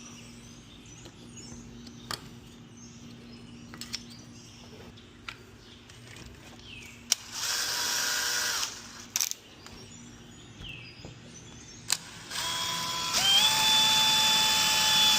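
Power drill run in a short burst of about a second and a half midway, then started again near the end, speeding up and running steadily. Scattered clicks and knocks come before and between the runs.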